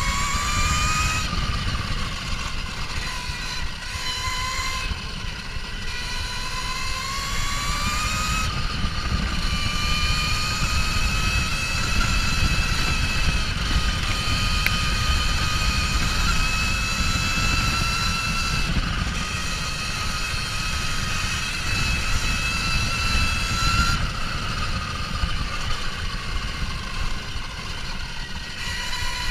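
Kuberg Ranger 14 kW electric motorbike's motor whining, its pitch rising and falling as the bike speeds up and slows, over a steady low rumble of wind on the microphone.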